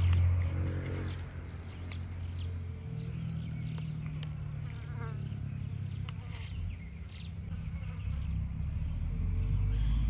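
Insect buzzing close to the microphone, a steady low drone that shifts pitch a couple of times, with a few short bird chirps.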